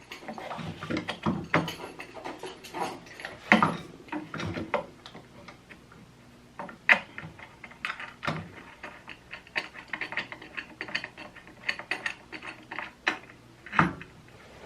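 Irregular clicks, taps and knocks of hardware being handled while a table extension is fitted to an industrial sewing machine: threaded rods, nuts and PVC pipe spacers set and turned into place. A few sharper knocks stand out, one about three and a half seconds in and another near the end.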